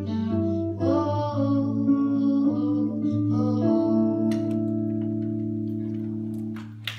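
Closing bars of a song performed live: a voice singing over guitar, ending on one long held note of about three seconds that stops shortly before applause.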